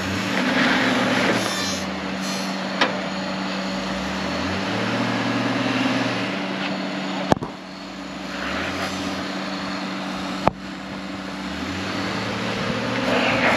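A Honda crossover's V6 engine revving under load on a steep rocky climb, its pitch rising and falling as the throttle is worked, over a steady low hum. Three sharp knocks about three, seven and ten seconds in.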